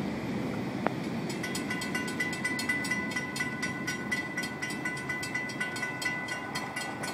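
Railroad grade-crossing bell ringing in rapid repeated strokes, starting about a second and a half in, while the crossing gates lift after the train has cleared. Underneath is a steady rumble from the freight train moving away.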